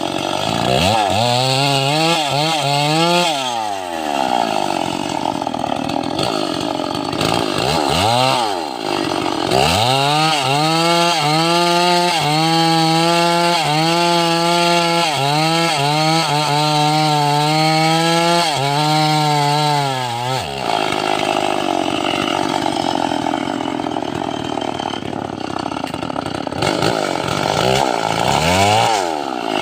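Long-bar two-stroke chainsaw (gergaji selendang) blipped up and down a few times, then held at high speed for about ten seconds in the middle, as when the chain is cutting through teak. It then drops back to a low, uneven run and revs once more near the end.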